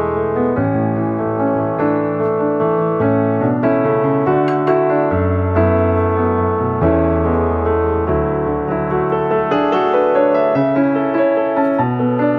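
Background piano music: a calm tune of held chords that change every second or two.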